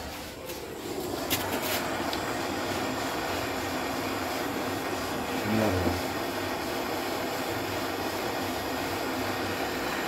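Steady whirring machine noise, a motor running without pause. A few light clicks come about a second and a half in, and a brief low hum near six seconds is the loudest moment.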